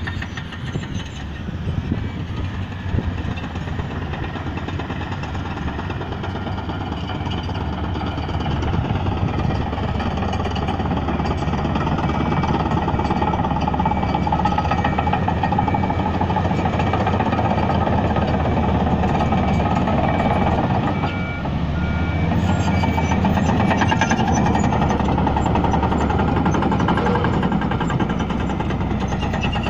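Bulldozer's diesel engine running under load with a rattling clatter, growing louder about ten seconds in. A reversing alarm beeps steadily through the middle stretch.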